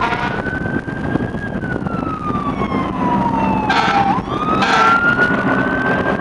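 Fire engine siren in a slow wail, rising and falling over a few seconds and sweeping back up about two-thirds of the way through. Two short horn blasts sound around that upswing, over a steady low rumble.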